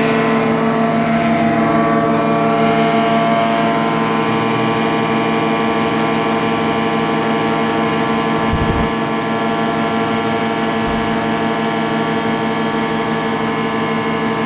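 Kawasaki K3SP36 hydraulic pump running steadily after repair, a loud, even machine hum with a pitched whine over it. A short low thump comes about nine seconds in, where the level drops slightly, and another near eleven seconds.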